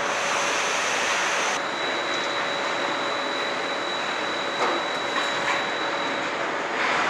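Truck assembly-line machinery noise: a steady hiss and hum of conveyors and equipment with a faint constant tone. A thin high whine sets in about one and a half seconds in and stops about six seconds in, and a couple of light clanks come near the end.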